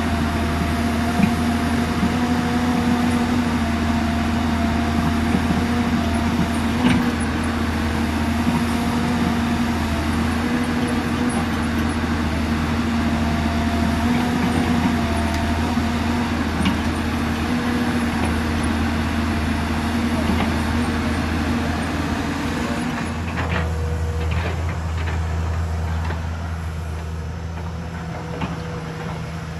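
Hyundai Robex 220 crawler excavator's diesel engine running steadily under working load as it digs, with a few knocks from the bucket in the soil. About three quarters of the way through the engine note changes to a quieter, lower hum.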